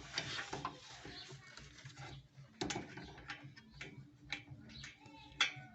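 Scattered light clicks and taps of workshop handling, a few at a time with short gaps between.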